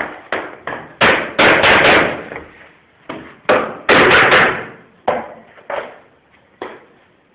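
Hammer knocking floor boards together at the joint: a run of sharp knocks, with two loud rapid flurries about a second in and again about three and a half seconds in, and lighter single taps between.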